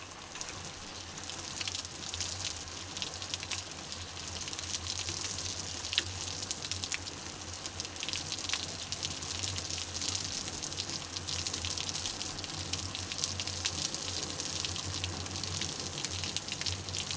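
Garden hose spray raining down on a rabbit-fur felt hat, a coat and wet wooden decking: a steady pattering hiss of many fine drops.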